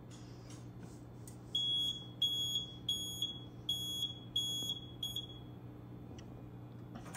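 Notifier 3030 fire alarm control panel's built-in piezo sounder beeping in quick high-pitched pulses, about three a second, while the system resets, stopping about five seconds in. A steady low hum runs underneath.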